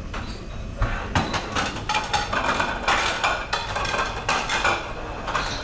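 Clatter of metal utensils against pans and dishes: a busy run of clinks and knocks with some metallic ringing, starting about a second in.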